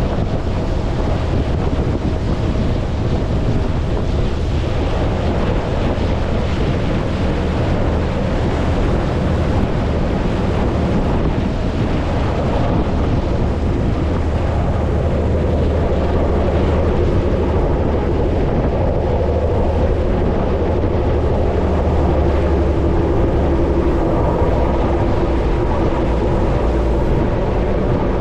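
A tour boat's engine running with a steady low drone, with wind buffeting the microphone.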